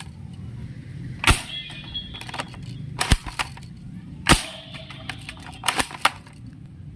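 Toy gun being fired: a series of sharp cracks, irregularly spaced about a second or two apart.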